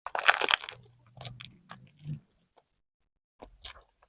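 A crisp bite into a rice-paper roll of steamed mackerel with lettuce, herbs and cucumber, followed by chewing with small wet mouth clicks. The chewing fades out about two seconds in, with a few faint clicks near the end.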